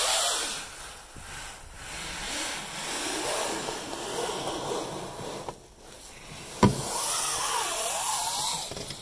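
Dark jacket sleeve rustling and brushing against the phone's microphone while an arm reaches into a wooden nesting box to pick up eggs. A sharp knock comes about two-thirds of the way in, followed by a short wavering vocal sound.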